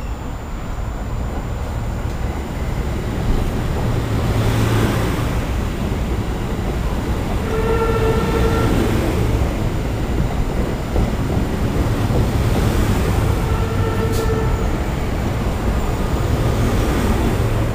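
Metro-North electric multiple-unit commuter train running past close by, with a steady rumble of wheels and motors. A horn sounds twice: once about halfway through and again, more briefly, some six seconds later.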